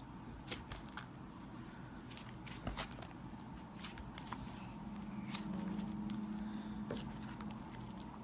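Slime being worked by hand: scattered sticky clicks and small crackling pops. A faint low hum joins in about the middle and fades near the end.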